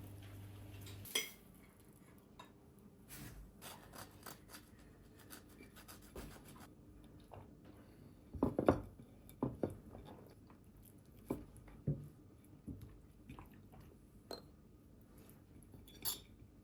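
A low steady hum stops with a click about a second in, followed by scattered light clinks and knocks of dishes and utensils being handled.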